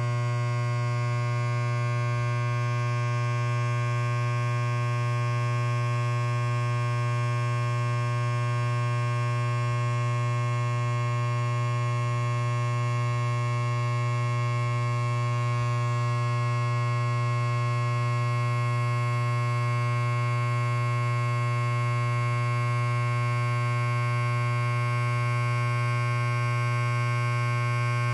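Electric hair clipper running steadily with nothing in its blade, a constant low buzz with many overtones.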